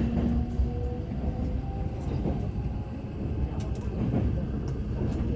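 Kintetsu limited express electric train running over a steel truss bridge, heard from inside the passenger car: a steady low rumble with a few faint clicks.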